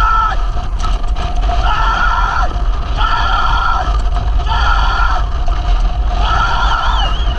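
Wind rumbling hard on a camera riding a galloping racehorse. Over it, a voice cries out in long held calls, one about every second and a half, with a brief warbling whistle-like tone near the end.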